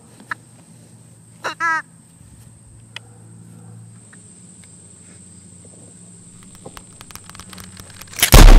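A rubber chicken squawks with a wavering, squeaky call about a second and a half in. Near the end comes a single loud rifle shot, booming and dying away.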